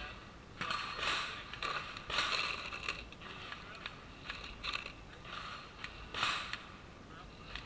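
Loose rifle cartridges clinking and scraping as they are picked from an ammo box and pressed by hand into a magazine, in short irregular bursts.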